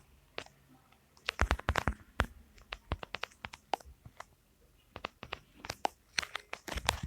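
Irregular sharp clicks and knocks close to the microphone: a cluster a little over a second in, scattered single clicks after it, and another cluster near the end.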